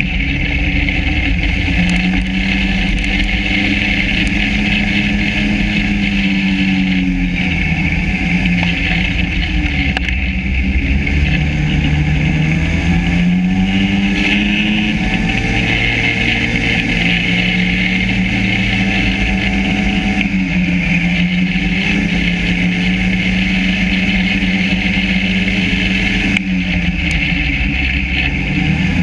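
Yamaha SRV 540 snowmobile's two-stroke twin engine running, its pitch rising and falling over and over as the throttle changes, with a steady hiss over it.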